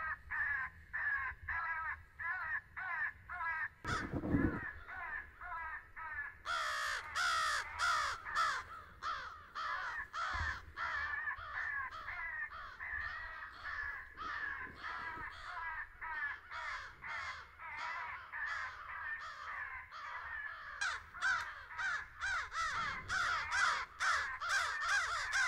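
Crows cawing continuously: many short, harsh caws overlapping, a few at a time at first and then a dense, agitated chorus from about six seconds in. A low thump about four seconds in.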